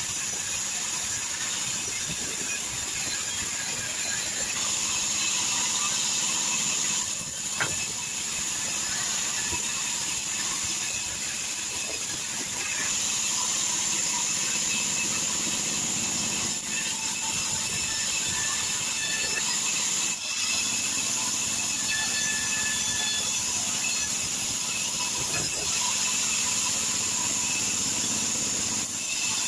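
Sawmill band saw running steadily as its blade rips a wooden plank into boards: a continuous high hiss over the machine's drone, with a few brief dips in level.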